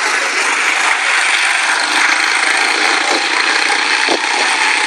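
Several quarter midget race cars running laps together, their small engines blending into a loud, steady drone.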